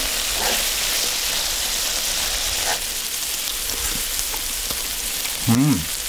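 Thin-sliced pork belly and garlic cloves sizzling steadily on a hot griddle. Near the end there is a short hummed "mm".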